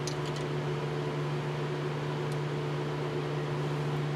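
Steady mechanical hum of a fan-like machine running, with a few faint small clicks near the start and once about halfway through.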